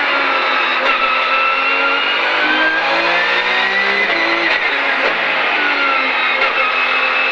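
Porsche 911 GT3 Cup race car's flat-six engine heard from inside the cabin, driven hard with the revs climbing and dropping repeatedly.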